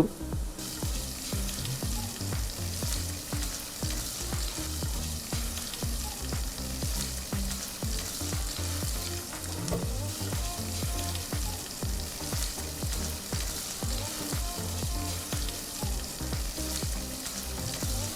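Chicken pieces on the bone sizzling in hot ghee as they brown in the pot, stirred with a spoon that clicks and scrapes against the pot.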